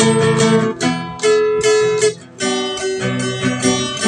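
Instrumental song intro: an acoustic guitar strumming chords, with a short dip in the playing about two seconds in.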